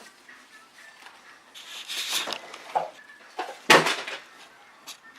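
Small metal parts and a flathead screwdriver handled against a valve spring while fitting valve keepers on a cylinder head: a scraping rattle about two seconds in, then a single sharp clack, the loudest sound, a little later.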